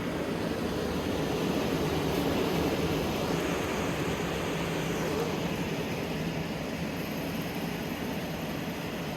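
Automatic side-seal shrink-wrapping machine running: a steady drone of motors and hot-air blower with a low hum, swelling slightly for a few seconds in the middle.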